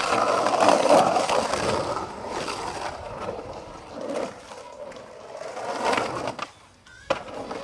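Skateboard wheels rolling and scraping across the concrete of a drained swimming pool, loudest over the first two seconds and swelling again twice as the board carves the walls. The sound drops away suddenly about six and a half seconds in.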